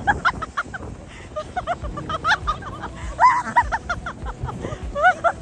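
People shrieking, whooping and laughing during a snow-tube ride down the slope, with short high cries gliding up and down over a low rumble of rushing air and snow.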